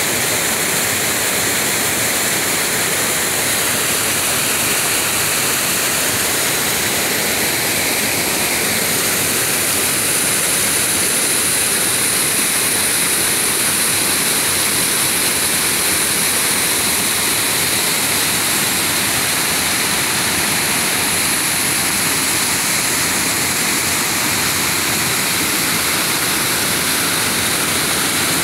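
Small waterfall pouring into a rock pool: a loud, steady rush of falling and splashing water.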